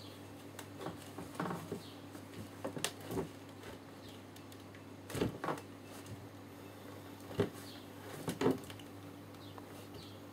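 A screwdriver prying at a cut seam in a bread maker's hard plastic casing: irregular creaks, scrapes and clicks of stressed plastic, with several sharper cracks in the second half.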